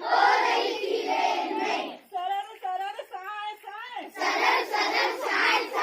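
A group of children singing a Hindi rhyme loudly in unison, twice, with a single voice singing a short line alone between the two group parts.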